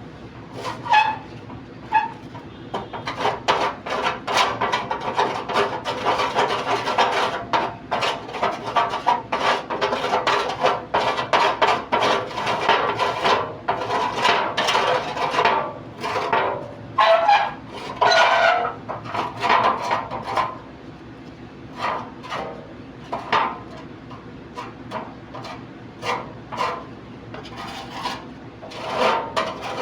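Rapid scraping strokes of a hand tool on rusty metal, in quick dense runs. After about twenty seconds they thin out to occasional strokes, then pick up again near the end.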